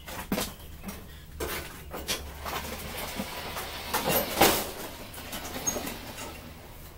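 Scattered knocks, clicks and scuffing as a riding lawn mower is pushed by hand with its engine off, the loudest knocks coming about four seconds in.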